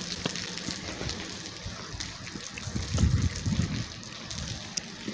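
Steady rain falling on a wet paved street, with a few low rumbling bursts about three seconds in.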